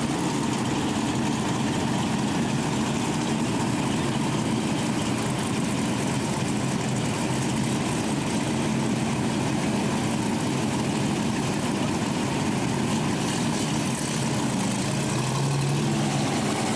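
Engines of several figure-eight stock cars running together as a pack, a steady drone with no revving up or down.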